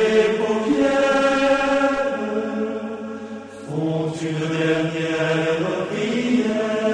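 Solo violin playing a slow Christmas tune in long, held notes.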